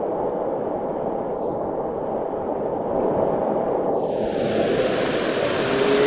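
Steady rush of a waterfall's falling water, a dense even noise; its upper hiss is dulled at first and brightens about four seconds in.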